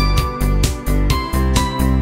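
Background music with a steady beat and a melody of sustained notes.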